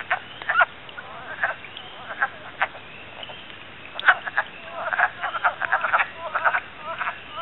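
Wood frogs in a breeding chorus, many short calls overlapping, scattered at first and much denser from about four seconds in. Spring peepers peep faintly in the distance.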